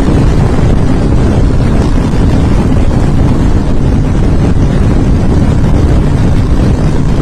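Harley-Davidson V-twin motorcycle engine running loudly and steadily, its sound sitting mostly low in pitch.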